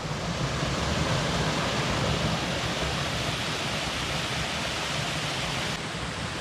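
Waterfall and rocky mountain stream rushing steadily, dropping slightly in level near the end.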